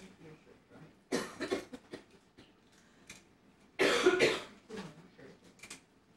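A person coughing twice, one short fit a little after the first second and a louder one about four seconds in.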